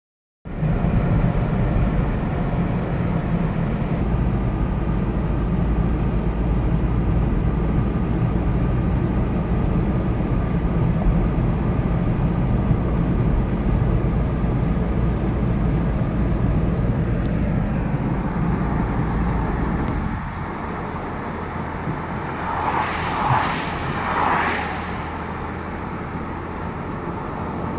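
Steady road and engine noise inside a moving car's cabin: a low rumble that drops quieter about twenty seconds in. Near the end come two short, louder noises a second or so apart.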